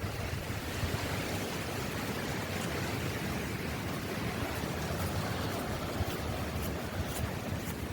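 Steady wind blowing, with a low rumble of wind buffeting the microphone.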